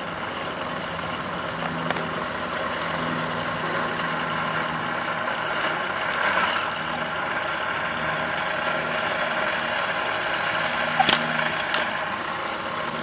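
Battery-powered lure course machine running steadily, its motor humming as it pulls the lure line around the course. Two brief knocks near the end.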